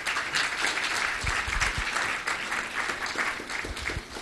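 Audience applauding, many hands clapping, fading near the end.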